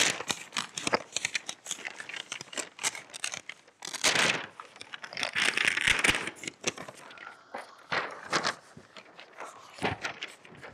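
A paper envelope torn open and a greeting card handled: crinkling, rustling paper, with louder tearing about four seconds in and again around six seconds in.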